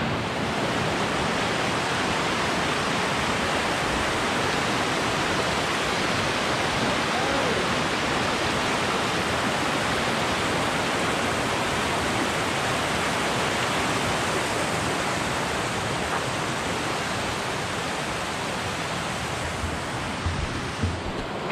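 Mountain stream cascading down over rocks: a steady rush of water that eases a little near the end, with a couple of soft thumps.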